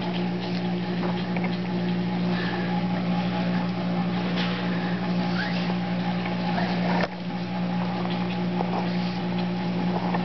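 A steady motor-like drone with a low hum, continuous and unchanging, with faint rustles and light ticks over it. It drops out for an instant about seven seconds in and comes straight back.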